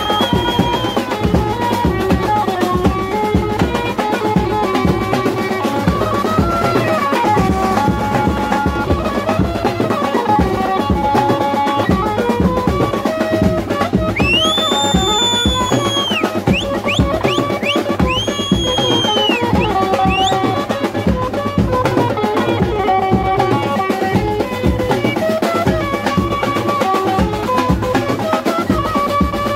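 Mumbai banjo-party band playing a melody over steady dhol and drum beats. About halfway through, a shrill whistle sounds twice, with a few short chirps in between.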